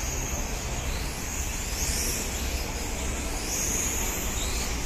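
Small electric 1/12-scale RC pan cars running laps, their motors giving a high-pitched whine that swells and fades twice as cars pass, over a steady low rumble.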